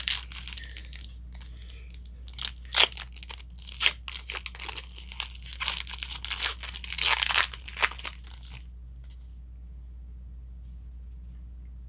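Foil trading-card pack wrapper crinkling and tearing in a run of sharp rustles, which stop about three-quarters of the way through.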